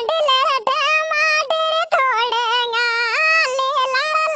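A sped-up, high-pitched cartoon voice singing a folk song (an uchhata geet) in long held, wavering notes with short breaks between phrases.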